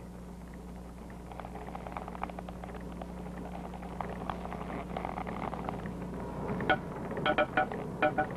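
Old belt- and gear-driven woodworking machinery in a wheel factory, clattering with many small knocks over a steady low hum. Near the end comes a quick run of sharp, ringing metal clanks.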